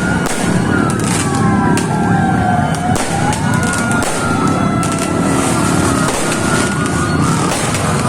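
Several ambulance sirens wail at once: one holds a high tone while another slowly falls and rises in pitch. Repeated sharp firework bangs and a dense crowd hubbub run underneath.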